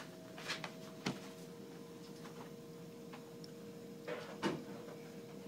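A steady electrical hum from equipment, with a few soft clicks and knocks of handling: one about half a second in, one about a second in, and a pair near the end.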